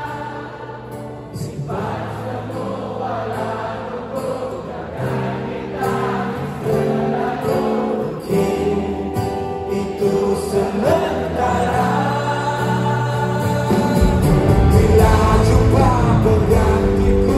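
Live band with guitars and a large crowd singing along together. Near the end the full band comes in with a heavier low end and the music gets louder.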